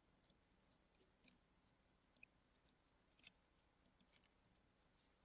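Near silence: room tone with a few faint, scattered clicks from someone working at a laptop.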